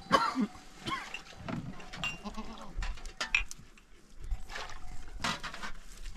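Livestock bleating in several short calls, with a few light knocks between them.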